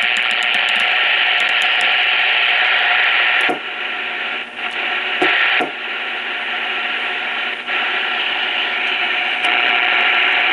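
Static hiss from a Pace 1000-B CB radio's speaker, a steady rush that drops quieter about three and a half seconds in and then steps up and down a few times with small clicks. More static than the owner expects on sideband, which he takes as a sign the radio still has a problem.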